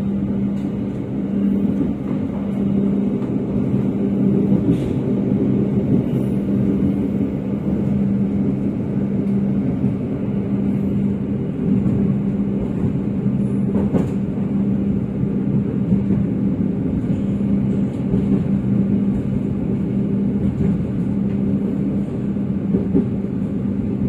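Passenger train running at speed: a steady rumble with a constant hum and a few faint clicks.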